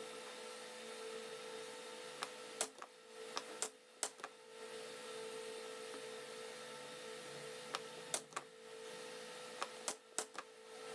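Short sharp knocks in four small clusters, about two, four, eight and ten seconds in, over a steady hum: plywood birdhouse parts being tapped together at their interlocking joints.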